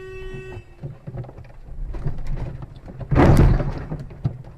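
A car horn sounding steadily cuts off about half a second in, over low engine and road rumble. About three seconds in comes a short, loud, harsh crunch of a vehicle collision, followed by a few clicks and knocks.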